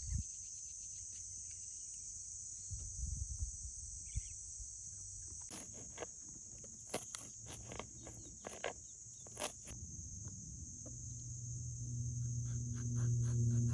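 Steady high-pitched chirring of insects, with a run of sharp clicks in the middle and a low hum that swells over the last few seconds.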